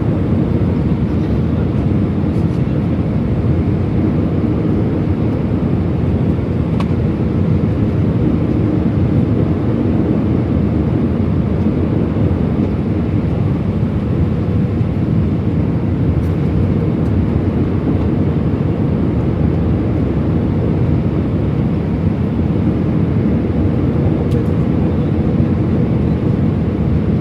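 Jet airliner cabin noise: a steady, loud, low rush of engine and airflow sound heard from inside the passenger cabin.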